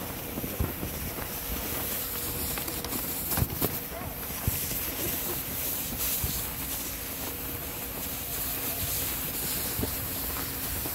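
Footsteps in snow and inflatable snow tubes scraping over the snow as they are dragged by their tow ropes, over steady wind noise on the microphone and faint voices. A couple of sharp knocks come around the middle.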